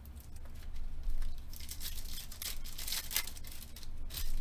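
Foil wrapper of a Panini Select basketball card pack being torn open and crinkled, in a run of short rips about halfway through and another near the end.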